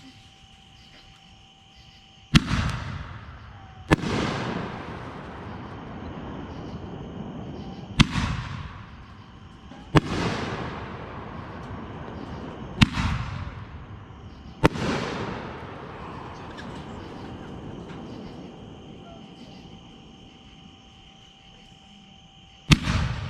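Consumer artillery-shell fireworks bursting, about seven sharp bangs spaced a few seconds apart. Several are followed by a fading crackle and hiss lasting a few seconds.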